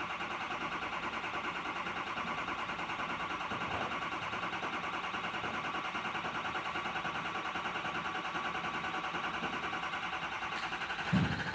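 Starter cranking a Ford 6.0L V8 diesel engine in a long, even, pulsing crank with a starter whine, the slow start expected after the repair. Near the end the engine catches with a louder burst.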